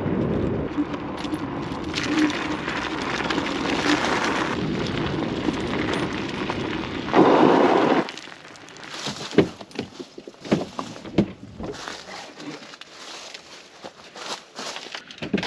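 Wind buffeting the microphone and road noise from a moving scooter for the first half, ending in a loud surge of noise. It then drops suddenly to a quieter run of scattered clicks and knocks as someone handles things at a truck's open cab door.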